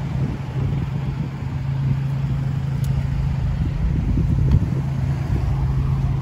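Roadside traffic: a steady low engine hum from vehicles on the road, over an uneven low rumble.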